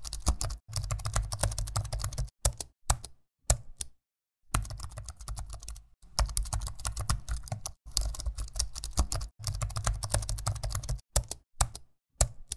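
Fast typing on a computer keyboard, the keys clicking in quick runs separated by short pauses. There is a brief silent break about four seconds in, and only scattered keystrokes near the end.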